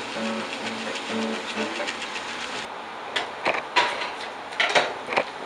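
A steady hiss for about the first half, then a series of sharp knocks and clatters: dishes and blender parts being handled on a kitchen counter.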